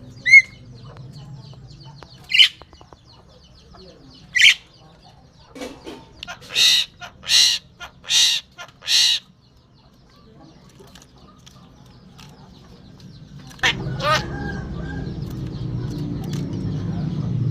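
A pet starling calling: a few short, sharp rising notes, then a run of four loud, harsh rasping calls in quick succession. Near the end comes a falling call over a low steady hum.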